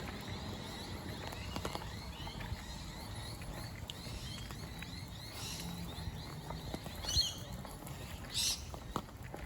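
Light rain patter with a few short bird calls, the clearest about seven and eight and a half seconds in.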